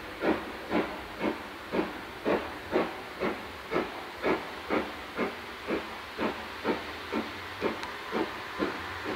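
Two-cylinder BR Standard Class 5MT 4-6-0 steam locomotive No. 73082 working a train, its exhaust beating evenly at about two chuffs a second and slowly fading.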